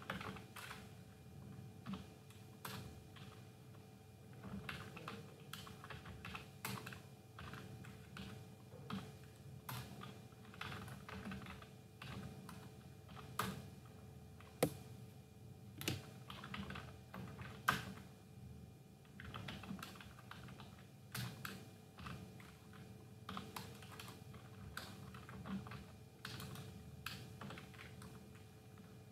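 Computer keyboard typing in irregular runs of keystrokes, with a few sharper, louder key strikes, over a faint steady hum.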